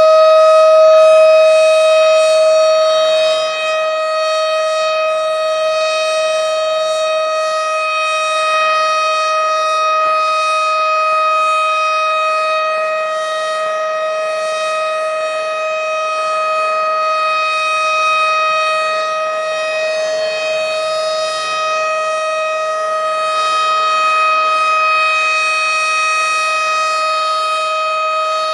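Tornado warning siren sounding a steady, unbroken tone that holds one pitch with no rise or fall, swelling and dipping slightly in loudness.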